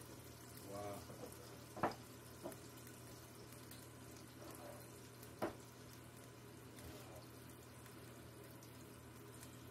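Leftover beef tallow and steak drippings in a hot frying pan, ticking faintly, with two sharper pops about two seconds in and again past five seconds, over a steady low hum.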